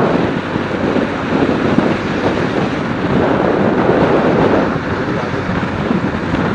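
Very loud wind noise on the microphone of a moving motorcycle: a steady rushing, with the bike's running and road noise underneath.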